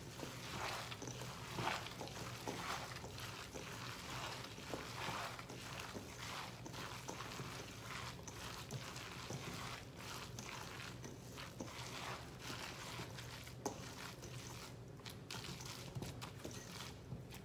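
Gloved hands mixing grated zucchini with gram flour in a stainless steel bowl: repeated soft, irregular squishing and rustling strokes, over a low steady hum.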